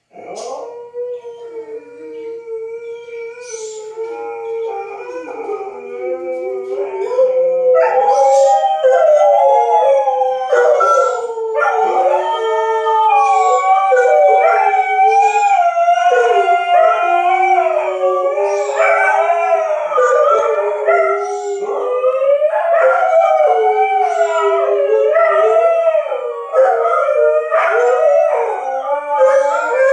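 Dogs howling together, long wavering howls that overlap and swell louder about eight seconds in. The howling is set off by a tornado siren test.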